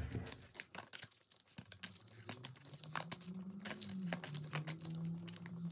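An oracle card deck being shuffled by hand: a run of quick papery flicks and clicks of card stock. A faint steady low hum joins about halfway through.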